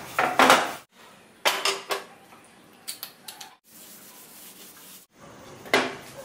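Tissue paper rubbing over oiled cast-iron pans on a gas stove in several short scrapes, with pans clattering on the burner grate. The pans are being wiped down with oil after washing and heating.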